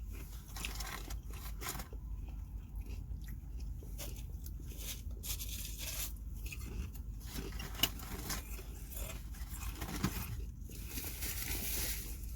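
Close-miked eating: food being chewed and crunched in irregular short crackles, over a steady low hum.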